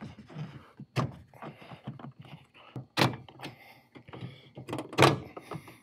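Plastic interior trim panel being worked loose by hand, its retaining clips letting go with three sharp snaps about two seconds apart, the last the loudest, among smaller clicks and rubbing of plastic.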